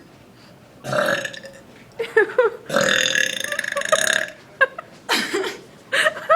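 A woman burping twice: a short burp about a second in, then a long, drawn-out belch.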